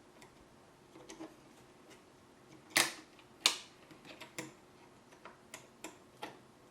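Small plastic-and-metal clicks and taps of an M.2 SSD being slid into the motherboard's M.2 connector and pressed down into place: a scatter of light clicks, the two sharpest close together about three seconds in.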